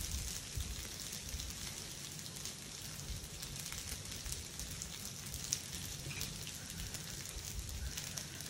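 Semiya (vermicelli) and its tempering sizzling steadily in an oiled pan on the stove, a soft crackling hiss, with a few faint knocks from handling the pan or bowls near the start.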